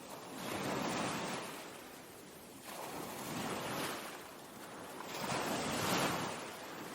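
Ocean surf: waves rushing in and washing back in three swells, one every two to three seconds, the second one rising sharply.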